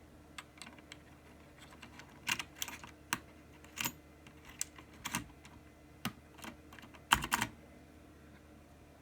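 Razer BlackWidow mechanical keyboard with clicky green switches, keys being pressed down one at a time: about a dozen separate, irregular clicks, with a quick cluster about seven seconds in.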